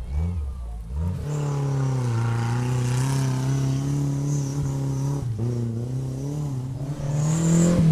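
Off-road 4x4 vehicle's engine running under load. Its pitch drops and picks up again about a second in and once more around five seconds in as the revs change, and it gets louder near the end.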